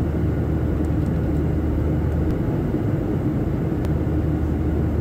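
Airliner cabin noise: the steady rumble and hum of the engines and airflow heard from a passenger seat.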